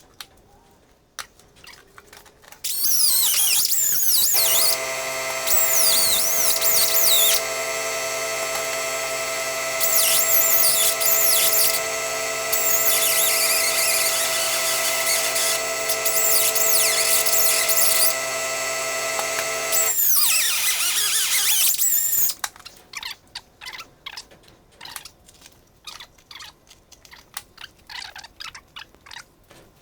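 Die grinder with a Norton cutting wheel trimming excess material along a trim line: a steady motor whine under scratchy, squealing cutting noise, running for about twenty seconds and then stopping. Faint clicks and handling noises follow.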